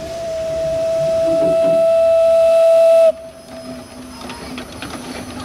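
Steam whistle of a small narrow-gauge 0-6-0 well tank locomotive, giving one long steady blast about three seconds long that grows louder and then cuts off sharply.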